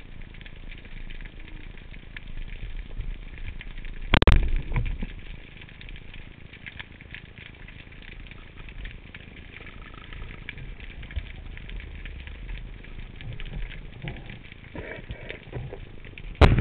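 Speargun firing underwater about four seconds in: one sharp, loud crack with a low thump trailing after it, over a steady crackling and ticking of the sea. Another cluster of loud knocks comes right at the end.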